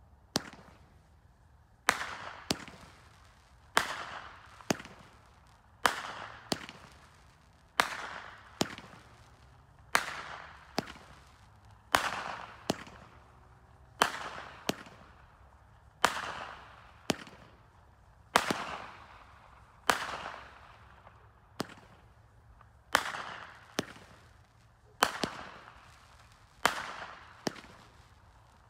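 Multishot fireworks cake of strobing peonies firing one shot about every two seconds. Each shot is two sharp bangs about half a second apart, the launch and the burst, followed by a fading hiss.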